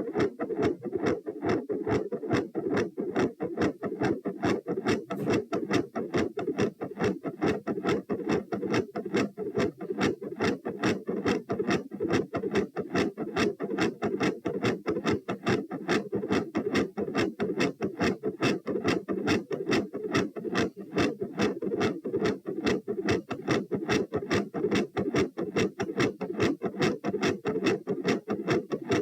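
Heart sounds in a fast, regular rhythm, each beat a quiet first heart sound (S1) followed by a loud second heart sound (S2).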